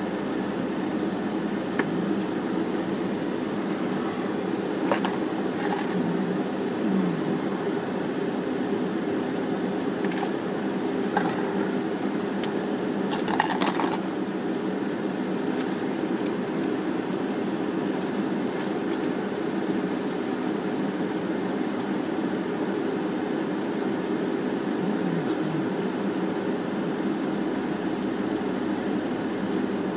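Steady low mechanical hum inside a parked car's cabin, with a few faint clicks and knocks around five seconds in and again around thirteen seconds in.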